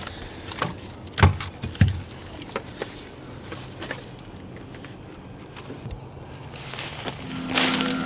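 Footsteps and rustling of people walking through woodland, with two louder thumps a little after a second in. Background music with steady held notes begins about seven seconds in.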